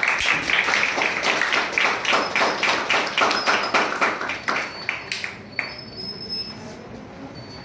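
A small group of people clapping, a fast dense patter of hand claps that dies away about five and a half seconds in.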